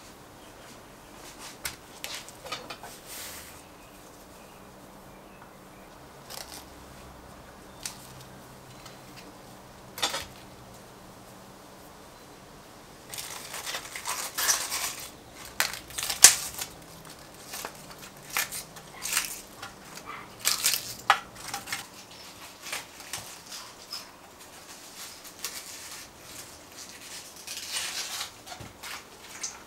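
Crisp cabbage leaves being torn off the head by hand, a dense run of crackling, snapping tears from about halfway through. Before that there are only a few light knocks and clicks, with one sharp click near the middle.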